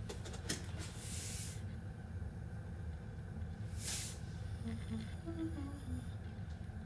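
Salt being shaken into a cooking pot: two short hissy bursts, about a second in and again about four seconds in, over a steady low kitchen hum.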